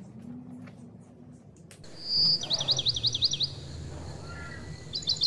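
A bird singing: a high held note about two seconds in, then a quick trill of rapidly repeated notes, with a second trill starting near the end.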